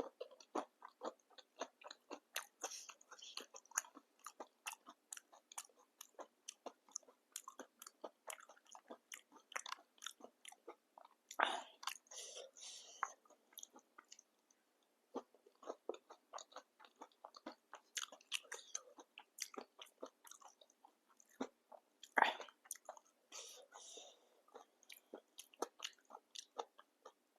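Close-up crunching and chewing of papdi chaat, crisp fried papdi wafers with chutney, in quick crackly bites. Two bites stand out as louder, near the middle and about four-fifths of the way through.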